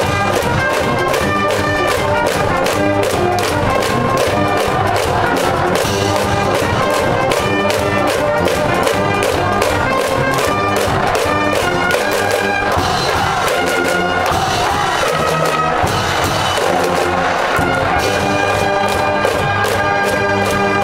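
A school brass band in the baseball cheering stand playing a fight song, trumpets leading, with a drum keeping a steady beat.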